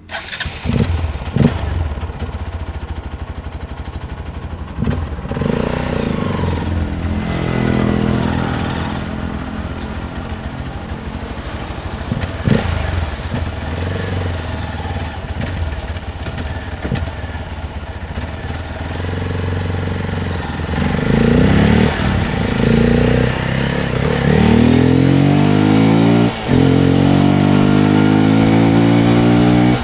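Hero Xpulse 200's single-cylinder engine coming on suddenly, running at low revs with a few throttle blips, then pulling away and accelerating, its pitch rising twice with a short dip at a gear change in between near the end.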